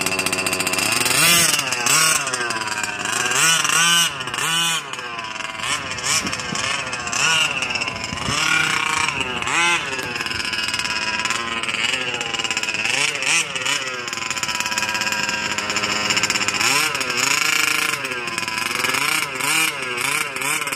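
Scott Finlay 34cc reed-case two-stroke engine in a Losi 5B 1/5-scale gas buggy, revving up and down over and over as the buggy is driven. The engine is being broken in.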